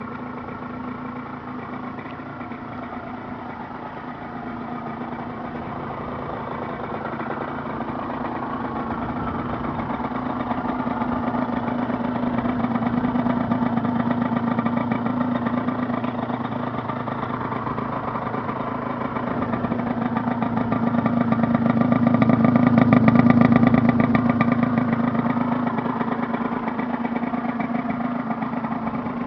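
Aprilia RS 50's two-stroke 50 cc single-cylinder engine idling at a steady pitch. It grows slowly louder to a peak about three-quarters of the way through, then eases off.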